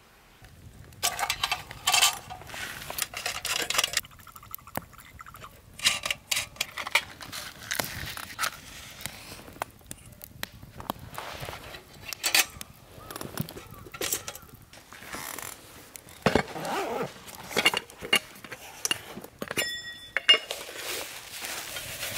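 Metal camp cookware being handled: irregular clinks and knocks of aluminium pots and lids, with rustling in between. Near the end one clink rings on briefly.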